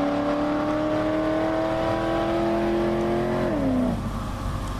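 Ford Crown Victoria's 4.6-litre V8 pulling hard under wide-open throttle, its exhaust note climbing steadily in pitch. About three and a half seconds in the pitch drops sharply and the engine sound falls away as the car moves off.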